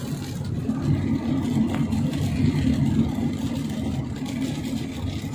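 Steady low rumble of a car's engine and tyres on a wet road, heard from inside the cabin while driving.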